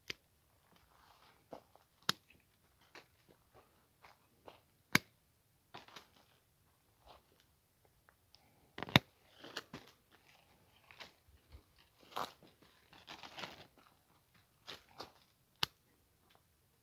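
Hand pruning shears snipping through quince branches: a sharp click with each cut, about five over the span, with dry leaves and twigs crunching and rustling between the cuts.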